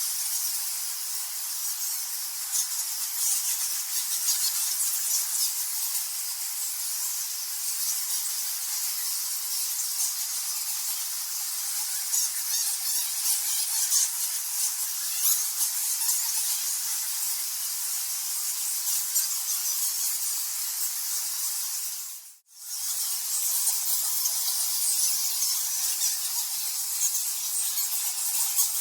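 Many bats squeaking in a dense, high-pitched mass of tiny chirps, with a split-second dropout about three-quarters of the way through.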